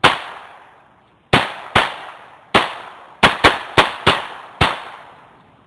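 Nine shots from a Smith & Wesson 2206 semi-automatic .22 pistol firing Aguila SSS 60-grain subsonic .22 LR rounds, in a ragged string with some shots in quick pairs, each a sharp report trailing off in a short echo. The pistol cycles every round with no malfunction during the function test.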